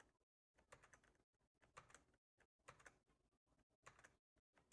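Faint clicks of keys on a Pictek RGB gaming keyboard being pressed over and over, about one press every half second to second, stepping through the keyboard's lighting colours.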